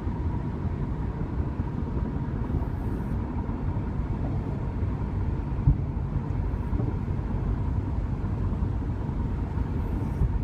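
Steady road and engine noise inside a moving car's cabin, with a faint steady whine running under it.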